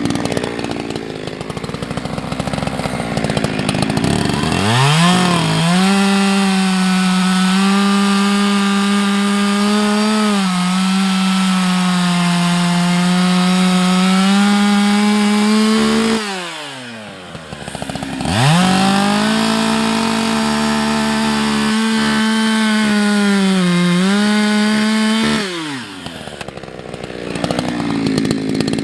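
Husqvarna 365 X-Torq two-stroke chainsaw idling, then run at full throttle through two long cuts in beech, the pitch sagging briefly under load. It drops back to idle between the cuts and again near the end.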